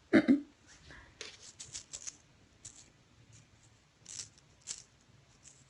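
Short scratchy rustles of a kitten and a hand scuffing on a fleece cat bed, a handful of brief scuffs, with one louder thump right at the start.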